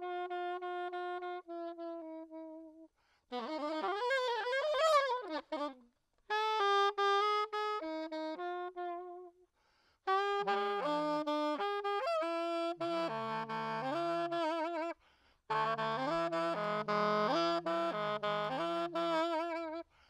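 Solo saxophone played as free-jazz improvisation: short phrases broken by brief pauses, one passage of bending, wavering pitches, and in the second half two pitches sounding at once.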